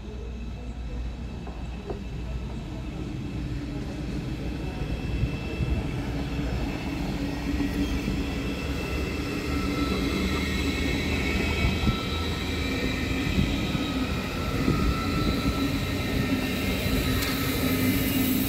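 ICE electric express train rolling slowly past the platform, a rumble with several steady electric whining tones that grows louder. Near the end, a high wheel squeal comes in as a second train pulls in.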